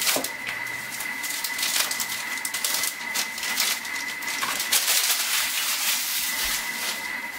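A bar of dark chocolate being unwrapped by hand: the wrapper crinkling and crackling in an uneven run of sharp rustles.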